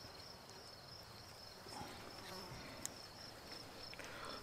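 Faint, steady high-pitched insect trilling, pulsing finely, with soft rustles of hands folding a tortilla with lettuce and a single small click about three seconds in.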